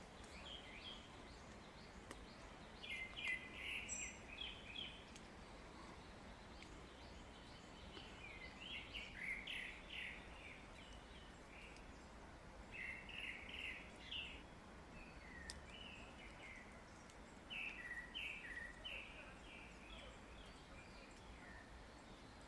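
Birds giving quick series of short, high chirps in four bouts a few seconds apart, over a faint steady forest background hiss.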